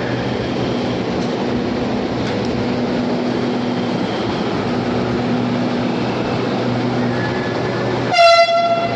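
Pune Metro train running, with a steady hum and rumble. About eight seconds in comes one short, loud pitched signal lasting under a second.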